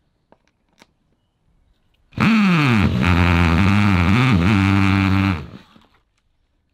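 Cordless DeWalt drill with a stepped bit running for about three seconds, widening a pilot hole in the RV's outer wall. The motor's pitch drops as the bit bites, wavers under the changing load, then the drill stops suddenly. A few light handling clicks come before it.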